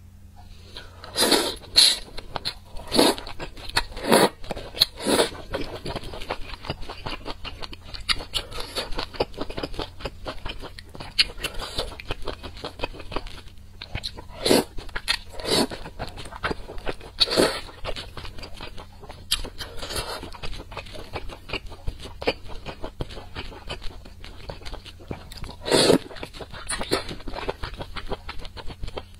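Close-miked eating of a spicy stew: steady wet chewing and crunching, with louder, sharper mouth noises every few seconds.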